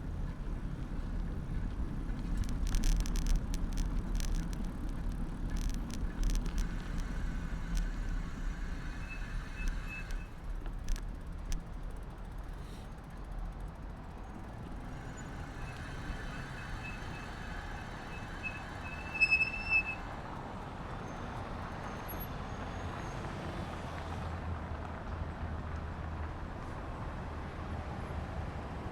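Riding a bicycle through city traffic, heard from a handlebar-mounted camera: steady road and traffic noise with a low rumble, and sharp clicks and rattles in the first third. Thin high squeals come twice, the louder one about two-thirds through.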